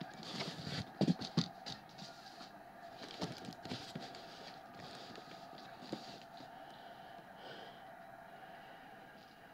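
Cardboard trading-card cases being handled and set down on a table: a few sharp knocks and scrapes in the first few seconds, then quieter handling over a faint steady hum.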